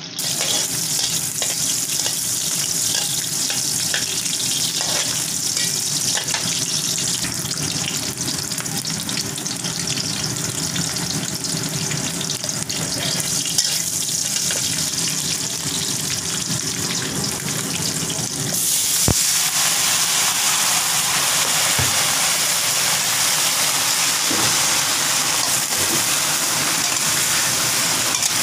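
Chopped garlic sizzling in hot oil in a wok, stirred with a metal spatula. About two-thirds of the way through the sizzle turns suddenly louder and hissier as the cut taro stalks go into the pan, with a single clink near that moment.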